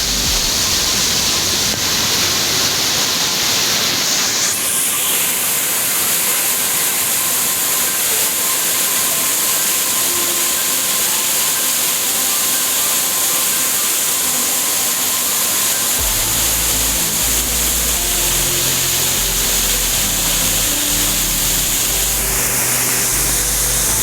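Steady rushing noise of the Iveche Falls waterfall. Background music with a bass line comes in about sixteen seconds in.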